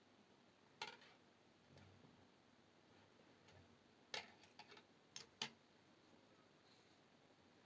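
Light, sharp clicks and taps of brass jewelry wire and small hand tools being handled, over near silence: one about a second in, then a quick cluster of four or five around the middle.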